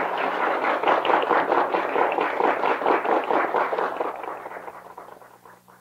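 Audience applause, a dense patter of many hands clapping, that fades out over the last couple of seconds.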